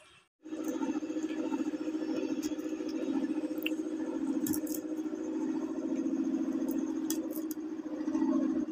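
A steady low machine hum, with a few small clicks from garlic cloves being peeled and split against a boti blade.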